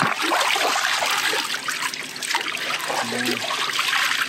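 Water splashing and sloshing as a small nonstick pan is dipped and swirled in shallow lake water to rinse it out, a run of quick irregular splashes.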